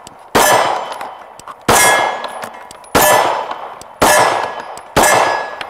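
Five 9mm pistol shots from a Glock 19 Gen 5, fired at a steady pace of about one a second, each followed by the ringing of a struck steel target.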